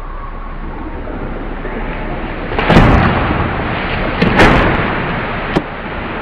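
Black caiman thrashing in shallow water with an anaconda in its jaws, throwing up two heavy splashes about a second and a half apart, then a short sharp slap of water near the end.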